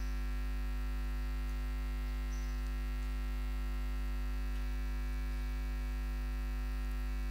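Steady electrical mains hum: a constant low buzz with its evenly spaced overtones, unchanging throughout.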